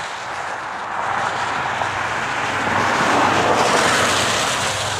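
GE Evolution-series diesel locomotives (ET44AC and ES44AC) at the head of a long intermodal freight train, approaching under power. A steady low engine drone sits under a rushing noise, and both grow louder as the units draw near, most strongly about three seconds in.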